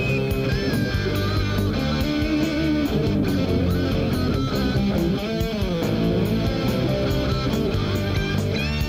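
Instrumental break of a rock song: guitar over bass and a steady beat, the lead line bending and wavering in pitch.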